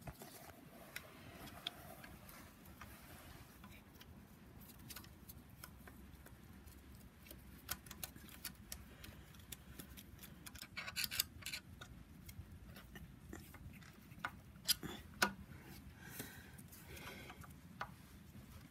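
Small metallic clicks and taps from a screwdriver and wrench working at the vacuum pump sprocket bolts on a BMW N54 engine. The clicks are scattered, with a quick run of ticks about eleven seconds in and a few sharper knocks near the end.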